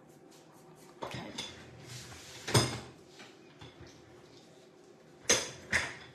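Pastel sticks clattering in their box as they are rummaged through: scattered clicks, a loud knock about two and a half seconds in, and two sharp knocks half a second apart near the end.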